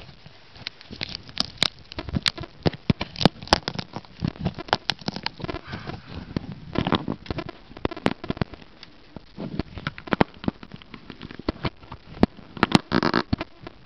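Handling noise right at a camera's microphone: rapid, irregular clicks and crackles as hands grip and work the camera, with a denser patch of crackling near the end.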